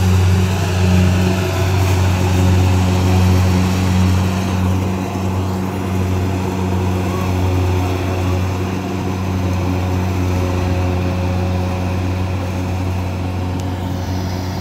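Kubota combine harvester's diesel engine running steadily under load as it harvests rice in soft, muddy ground: a deep, even drone that slowly grows quieter as the machine moves away.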